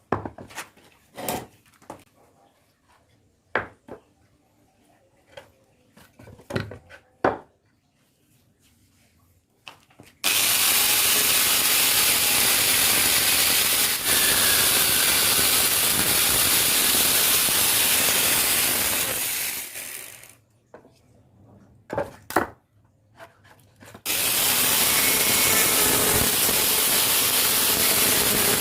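Wood lathe turning a block of sappanwood: scattered knocks of wood and tools, then a loud steady shaving noise as a turning tool cuts the spinning wood. The noise stops for a few seconds of knocks, then the cutting resumes.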